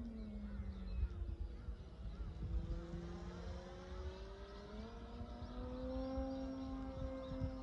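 Electric motor and propeller of a QQ Cap 232EX RC aerobatic plane in flight, a steady whine. Its pitch drops at the start, then climbs again from about five seconds in and holds.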